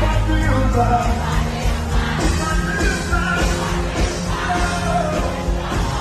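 Live Afrobeats music played loud through a concert PA: a bass-heavy beat with singing voices over it.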